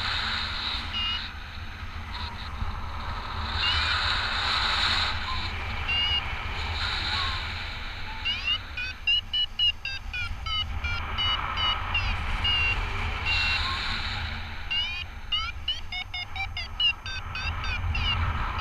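Paraglider variometer beeping in rapid runs of short rising chirps, dense about halfway through and again near the end: the vario's climb tone, which signals the glider is rising in lift. Steady wind rumble on the microphone underneath.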